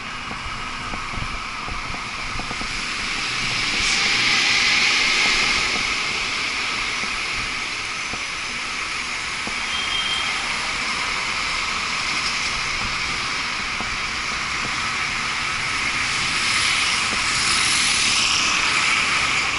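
City street traffic heard from a moving bicycle: cars and buses running past as a steady hiss and rumble, louder about four seconds in and again near the end.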